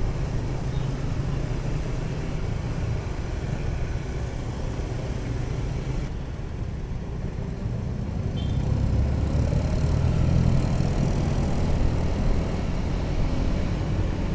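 Onboard motorcycle engine running in slow traffic, a steady low rumble with road noise that grows louder a little past the middle as the bike speeds up.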